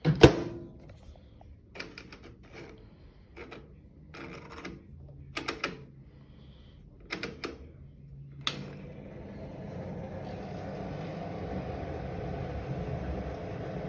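Samsung microwave oven being worked: a string of separate clicks and knocks from its door and controls. After a sharp click about eight and a half seconds in, it starts running with a steady hum.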